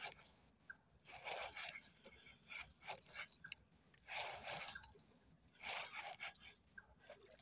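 A hooked sembilang catfish being reeled in on a spinning rod: four bursts of rustling noise about a second and a half apart, with a few sharp clicks between them.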